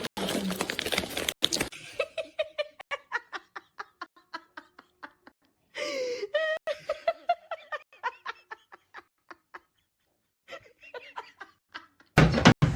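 A person laughing in a long run of short rhythmic bursts, several a second, breaking off briefly and picking up again. A loud burst of noise starts near the end.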